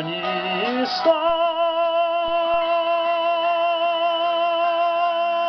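Karaoke singing over a pop-song backing track: the last sung word gives way about a second in to one long held note with vibrato.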